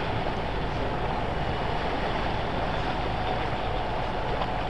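Police rigid-hull inflatable boat under way, its engine running steadily with water rushing along the hull.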